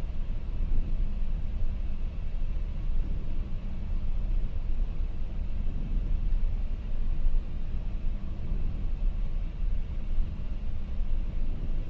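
Steady, deep wind and engine noise on the flight deck of a McDonnell Douglas MD-11 freighter on final approach, with the landing gear down and the flaps at 50.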